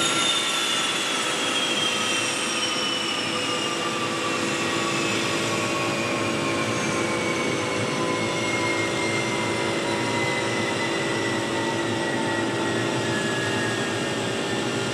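Rolls-Royce Spey turbofan spooling down after being motored over on its starter, which blows air through the jet pipe to put out a shutdown fire there. Its whine falls slowly in pitch over a steady hum.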